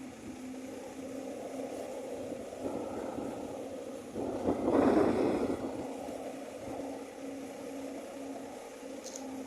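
Excavator's diesel engine running steadily at a work site, with a louder rushing noise about halfway through that lasts a second or so.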